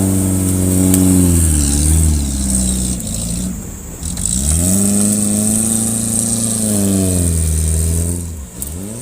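Off-road 4x4 engine revving hard and held at high revs. It drops off twice, a few seconds in and again near the end, and revs straight back up each time.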